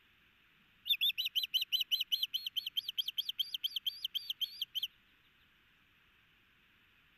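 Osprey calling: a fast series of about twenty sharp whistled notes, roughly five a second, lasting about four seconds.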